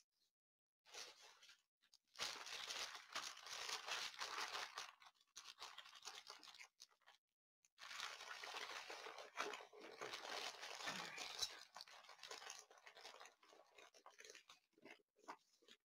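Rustling and crinkling of a large diamond-painting canvas and its paper cover sheet as they are handled and rolled up, in two stretches of a few seconds with a short pause between, then smaller rustles.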